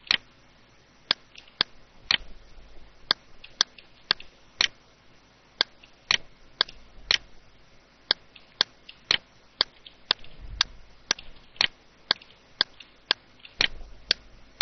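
Computer mouse button clicking over and over, sharp single clicks about every half second with a few short pauses, as lines are picked and erased in CAD software.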